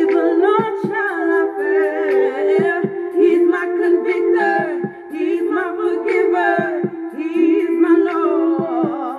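A man singing a worship song over a steady held note of accompaniment.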